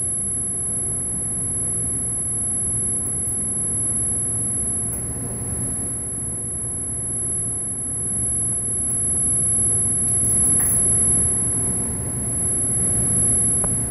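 Femtosecond laser pulsing at 10 kHz while ablating fused silica, heard as a steady, piercing high-pitched whine at the pulse rate, over a steady low hum of running equipment.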